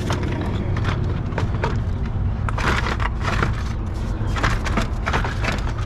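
Plastic shroud of a replacement engine cooling fan assembly scraping, knocking and clicking in bursts as it is slid down into place against the radiator, over a steady low hum.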